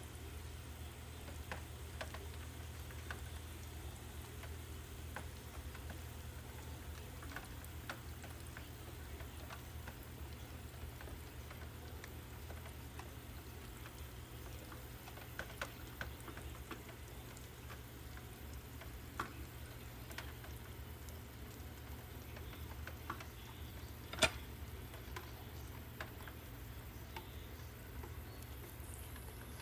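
Quiet background with a steady low hum and scattered faint ticks, and one sharper click about twenty-four seconds in.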